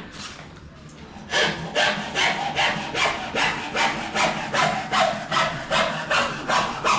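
Handsaw cutting cornice moulding with steady back-and-forth strokes, about two and a half a second, starting a little over a second in.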